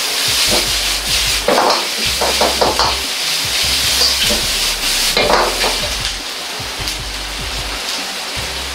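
Sausage and sliced vegetables sizzling in a hot wok while a metal ladle stirs and scrapes them, with clusters of ladle knocks against the wok about a second and a half in and again about five seconds in. The stirring stops after about six seconds, leaving a steady sizzle.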